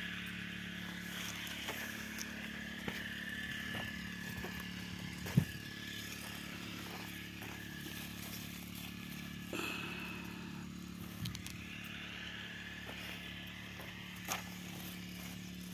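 A motor running steadily in the background, a low hum with a faint high whine over it, with scattered clicks and a sharp thump about five seconds in.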